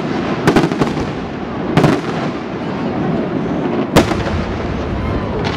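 Aerial firework shells bursting overhead: a quick pair of bangs about half a second in, another near two seconds, and the loudest bang about four seconds in, over a continuous rumble between them.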